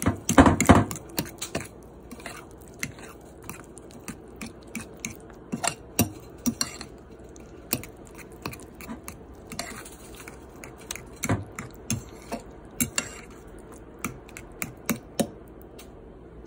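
Kitchen utensils clinking and knocking against dishes in irregular taps and clatters, loudest in a cluster in the first second and again about eleven seconds in.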